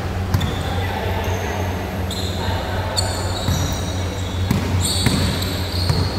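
Basketball being played on an indoor court: sneakers squeak sharply on the floor several times, mostly in the second half, and a ball bounces a few times, over a steady low hum.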